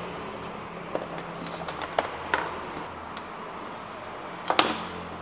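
Tools being picked up and handled on a wooden workbench, making a few sharp clicks and knocks, the loudest a double knock near the end, over a steady low hum.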